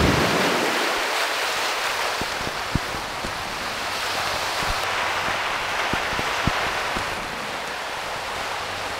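Sea waves breaking and washing over rocks along a stony shore: a steady rush of surf that swells and eases.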